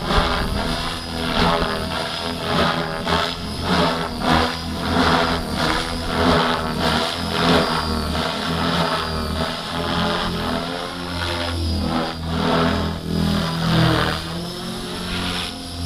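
Electric Gaui X5 RC helicopter in flight, its Switch 523 mm main rotor blades making a steady pitched hum under a whooshing blade noise that swells and fades as the model manoeuvres, with wind buffeting the microphone.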